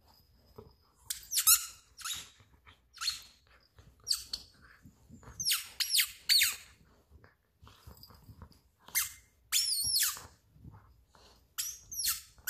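A dog chewing a squeaky chicken-flavored chew ball, squeezing out a string of short, irregular squeaks, some sliding or wavering in pitch.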